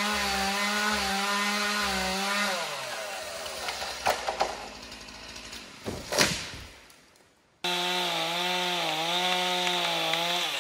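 A chainsaw runs at full throttle through a cut and eases off about two and a half seconds in. About four seconds in come a few sharp cracks of the trunk giving way, then around six seconds the swish and crash of the felled tree hitting the ground. After an abrupt cut, a chainsaw runs at full throttle again, cutting, with a few dips in pitch.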